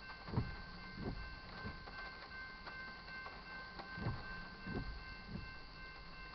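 Railroad crossing warning bell ringing steadily while the gate arms come down, with a few dull low thumps in two groups of three, about two-thirds of a second apart.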